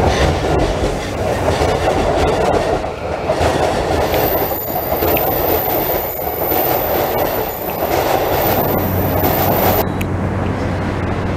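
JR Keihin-Tohoku Line E233-series electric train moving through the station platform: a steady rumble of wheels on rail with faint ticks. About ten seconds in it cuts off suddenly, giving way to a steady low hum.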